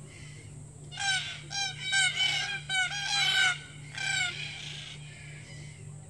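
Red-tailed black cockatoos calling: a run of about ten calls from several birds, some overlapping, starting about a second in and dying away a little after four seconds.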